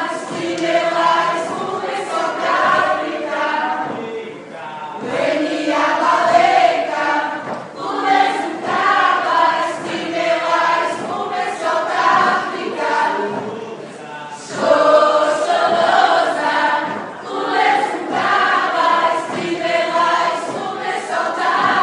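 Mixed choir of women's and men's voices singing together, in phrases with short breaks between them.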